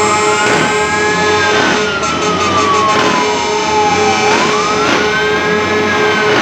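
Emergency-vehicle siren in a slow wail, its pitch rising quickly and then falling slowly, twice, with a steady pulsing lower tone sounding underneath.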